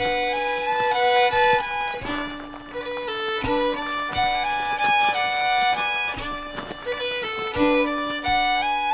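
Background music: a melody of held notes that steps up and down over sustained lower notes.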